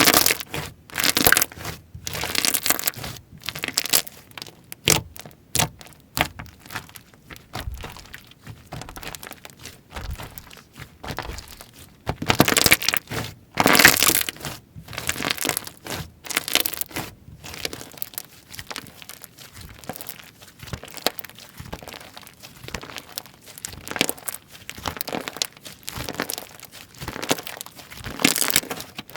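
Slime being pressed, squeezed and stretched by hand, giving irregular bursts of crackling, crunchy squishing sounds.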